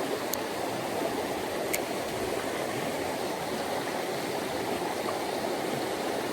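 Mountain stream water rushing steadily. Two faint, sharp high ticks come in the first two seconds.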